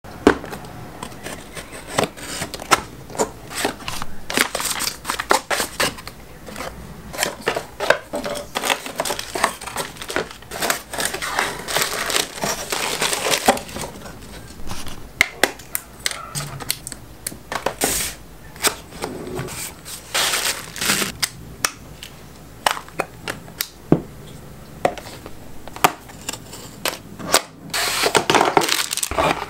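Close-up unboxing handling sounds: cardboard box flaps and packaging rubbing, sliding and crinkling, with many small clicks and taps as a Sony a7 III camera body and a Peak Design Slide camera strap in its box are taken out and handled.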